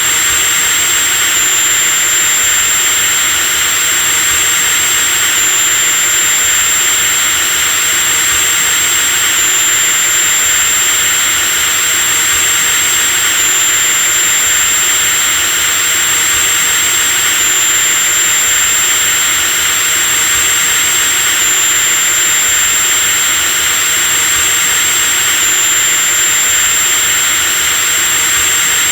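Power drill running continuously at a steady speed: a high motor whine over an even rushing hiss.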